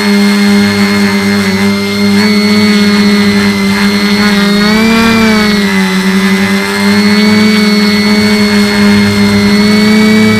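Brushless motors and 9x5 propellers of a small quadcopter in hover, heard from the camera mounted on the frame: a steady buzzing whine that rises briefly in pitch about halfway through and then settles back.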